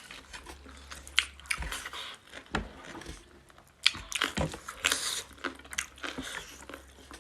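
Close-miked eating of pork curry and rice: irregular bites and chewing with sharp little clicks.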